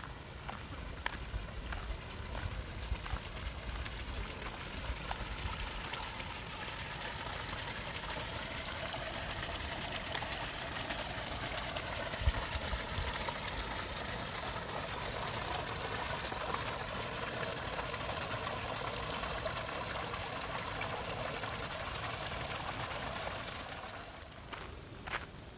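Running water trickling steadily, growing louder and then fading near the end, with a few footsteps as it fades.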